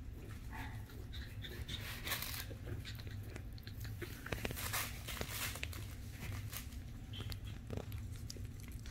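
Shih Tzu puppies playing, with scattered short scuffles and clicks and brief small puppy sounds, over a low steady hum.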